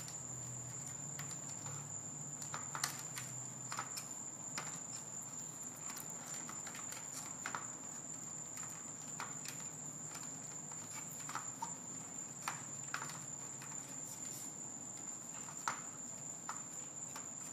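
Scattered light clicks and taps of hands handling LED-strip wiring and the plastic headlight housing, while the wire is routed and tucked away. A faint steady high whine runs underneath.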